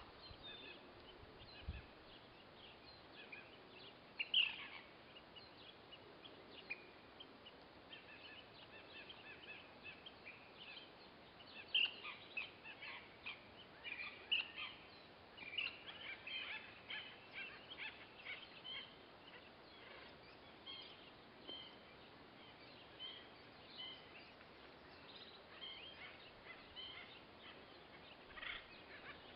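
Birds calling: short, high chirps and call notes scattered throughout, busiest about halfway through, over a faint steady hiss.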